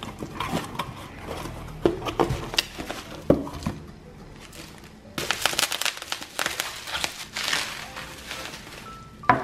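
Cardboard box flaps being handled, with scattered knocks, then plastic bubble wrap crinkling and rustling densely from about five seconds in as a glass beaker mug is unwrapped. A single sharp click near the end.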